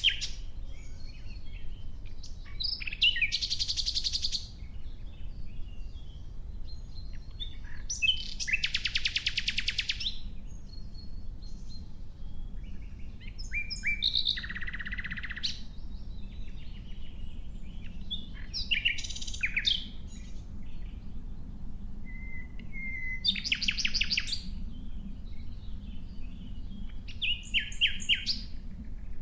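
Nightingale singing: separate phrases of one to two seconds, coming about every four to five seconds with pauses between, several built of very fast repeated notes like a rattling trill.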